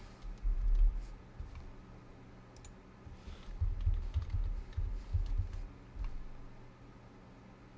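Typing on a computer keyboard, with scattered key and mouse clicks and dull low thumps carried through the desk. The thumps are loudest about a second in and again from about three and a half to six seconds in.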